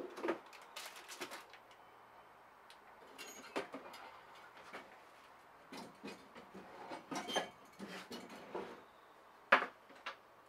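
Scattered knocks and clatters of handled objects, with one sharp, loud knock about nine and a half seconds in, over a faint steady low hum.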